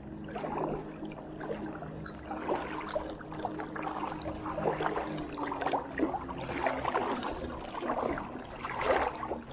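Legs wading through knee-deep water, sloshing and splashing with each stride. A steady low hum sits underneath and fades out about halfway through.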